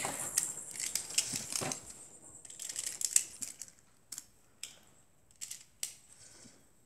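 Plastic Beyblade tops being handled and clicked together by hand: a run of short, sharp plastic clicks, closer together in the first few seconds, then a few single clicks spaced apart.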